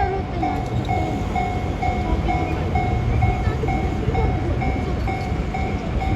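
Level-crossing warning alarm, the JR standard electronic bell, ringing on a single high tone about twice a second, over the low rumble of a freight train at the crossing.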